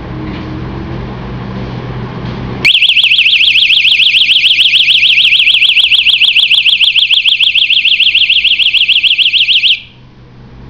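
Marvelmax high-decibel personal alarm sounding: a loud, high-pitched warbling tone that wavers up and down rapidly, several times a second. It starts abruptly about two and a half seconds in and cuts off sharply about seven seconds later.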